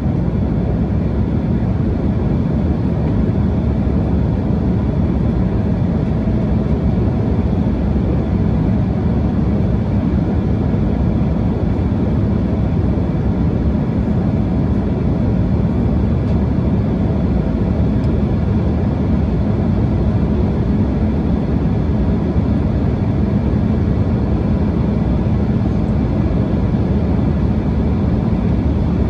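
Steady cabin noise inside an Embraer E175 jet in flight, an even low drone of airflow and its twin turbofan engines with no change in level.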